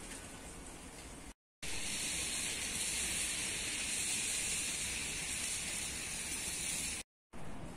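Steady rain falling: an even hiss. It cuts out briefly about a second and a half in and returns louder, then drops out again near the end.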